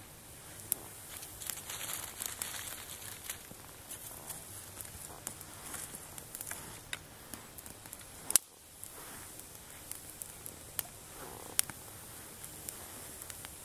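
Small fire of damp twigs crackling, with scattered sharp pops and clicks over a faint hiss, and the light rustle of sticks being handled and added. One loud snap about eight seconds in.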